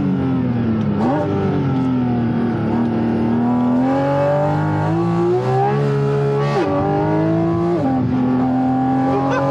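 Porsche 718 Cayman GT4's flat-six engine pulling through the gears under load. The revs jump sharply about a second in, then sag and climb steadily, and drop suddenly twice near the end as it shifts up.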